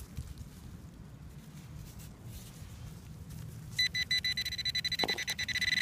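Faint scraping of soil and roots, then about two thirds of the way in a metal-detector pinpointer starts beeping: rapid high beeps that speed up and merge into a steady tone as the probe nears the buried lead bullet.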